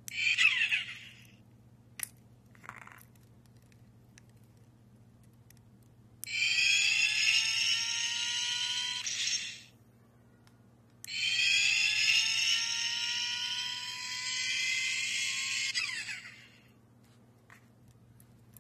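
Turbocharger-shaped USB keychain lighter making a whine twice: a rising tone that climbs slowly in pitch, about three seconds the first time and about five the second. Near the start there is a short falling sweep, and soon after a single click.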